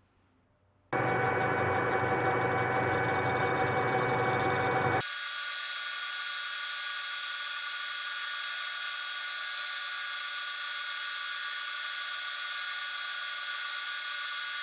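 A steady machine sound starts abruptly about a second in. About five seconds in it changes abruptly to a metal lathe turning a brass ingot, the cutting tool facing the spinning brass with a steady high-pitched whine and no low rumble.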